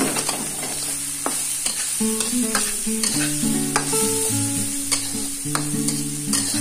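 Metal spatula scraping and knocking against a metal wok as diced vegetables are stir-fried, with a light sizzle. Soft background music of plucked guitar notes plays throughout.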